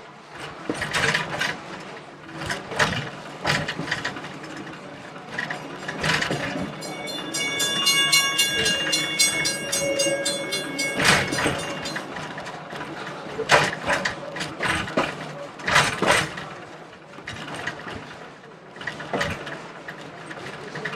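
Train rolling slowly over the track with repeated clanks, knocks and rattles from the running gear and cars. From about a third of the way in until about halfway, a railroad crossing bell rings rapidly and steadily as the train goes over a road crossing.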